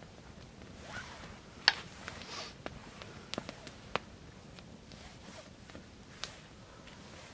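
Wild mushrooms being handled on a wooden board and cut with a small knife: a few sharp clicks and soft scrapes, the loudest about a second and a half in, over a steady low rumble.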